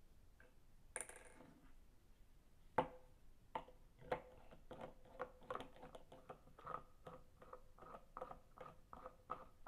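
Plastic pill crusher being screwed down by hand onto a pill: a short scrape about a second in, then a run of small, irregular plastic clicks and ticks, a few a second, from the threads turning and the pill being squeezed.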